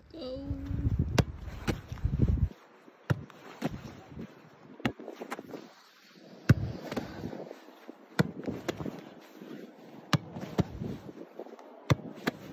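A football being kicked again and again: short, sharp thuds at irregular intervals, about one or two a second. Wind buffets the microphone in the first couple of seconds.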